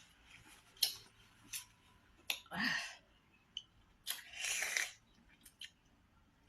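Several sharp clicks and two short scraping, rustling sounds of about half a second to a second each, like hands working with food and utensils.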